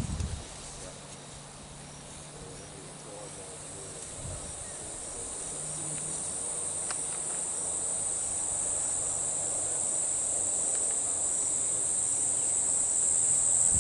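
Insects in a steady high-pitched drone that grows gradually louder.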